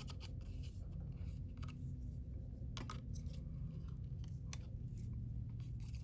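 Scattered small clicks and crackles of hands handling phone-repair parts and tools, over a steady low hum.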